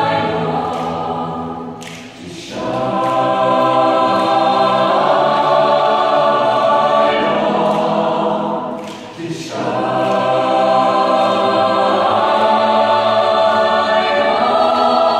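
Mixed-voice choir of men and women singing a cappella in harmony, holding chords that break off briefly about two seconds and about nine seconds in before the singing resumes.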